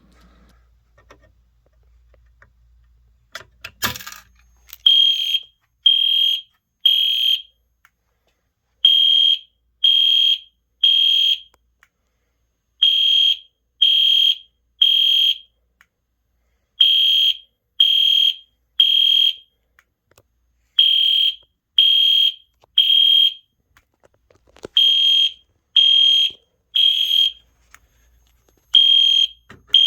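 A sharp crack about four seconds in as the pull station's glass break rod snaps. Then an EST Genesis fire alarm horn sounds in a temporal-three pattern: three short high-pitched blasts, a pause, and repeat, the evacuation signal.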